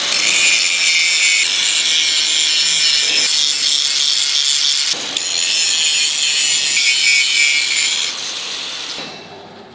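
Electric angle grinder's abrasive disc grinding the surface of a large forged steel bow shackle: a loud, steady, high grinding noise that breaks for an instant about five seconds in, drops lower near eight seconds and fades out just after.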